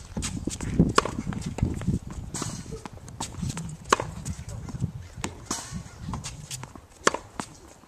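Tennis ball rally on a hard court: sharp pops of the ball off the strings and its bounces on the court every second or so, some in quick pairs, with shoes scuffing on the court between shots.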